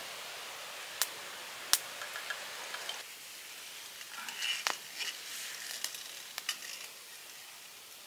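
Cooking oil pouring from a plastic bottle into a metal pot for about the first three seconds, then quieter, with a few sharp clicks and crackles.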